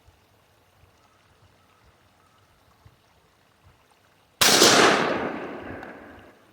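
A single shot from a Stoeger 20-gauge full-choke shotgun firing a 3-inch roll-crimped #2 buckshot load, about four and a half seconds in. It is a sharp, loud blast whose echo dies away over about two seconds.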